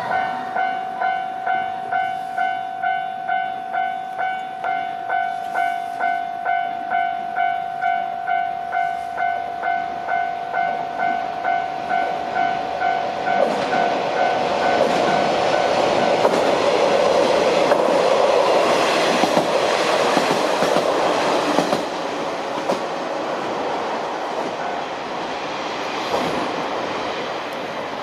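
Japanese level-crossing electronic warning bell ringing steadily about twice a second. A KiHa 40-series diesel railcar then rolls over the crossing, its running noise building and swamping the bell. The bell stops before the middle of the train's passage, and the train noise fades slowly toward the end.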